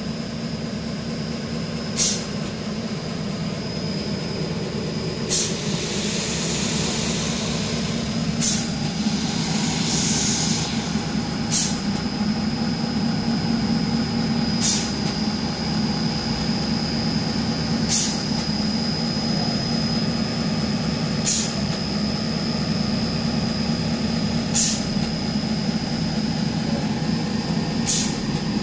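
Industrial wide belt sander for metal running steadily: a low hum with a thin high whine over it, and a sharp click about every three seconds.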